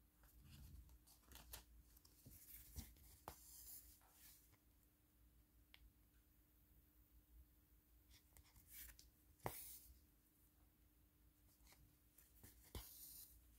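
Faint, scattered small clicks and taps with a few short rustles of hands working on a diamond-painting canvas, the sharpest click about nine and a half seconds in, over a faint steady hum.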